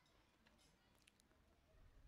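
Near silence: faint background hiss and rumble, with a few faint ticks about half a second to a second in.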